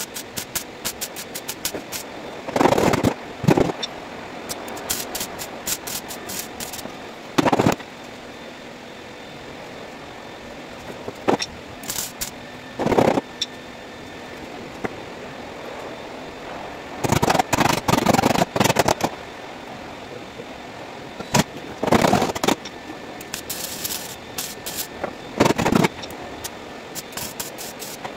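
Welder laying short spot and tack welds on car body sheet metal: a series of crackling bursts, each about half a second to two seconds long, with pauses between them.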